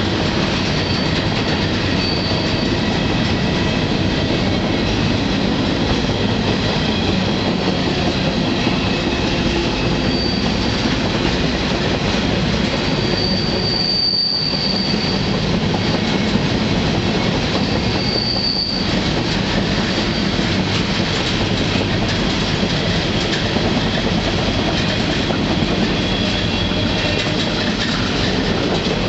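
Riding freight car's steel wheels rolling on the rails, a loud, steady rumble and rattle. Several brief high wheel squeals cut through it, the longest about halfway through.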